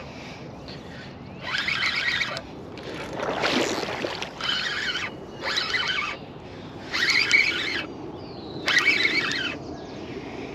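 Spinning reel's drag buzzing in repeated short bursts, about six in all, as a hooked carp pulls line off against it. About three seconds in there is a rougher, lower rush.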